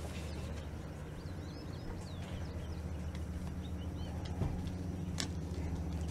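Outdoor ambience: a steady low rumble with small birds chirping now and then, and two short knocks about four and five seconds in.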